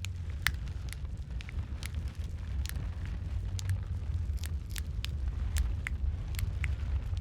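Wood fire burning in a fireplace: a steady low rumble of flames with sharp, irregular crackles and pops, about two a second.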